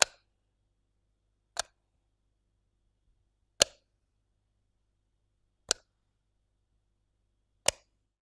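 Light switch clicked five times, one sharp click about every two seconds.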